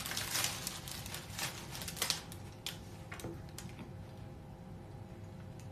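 Light clicks and rustles of handling and movement close to the microphone, dense for about two seconds, then only a few scattered ticks over a faint steady hum.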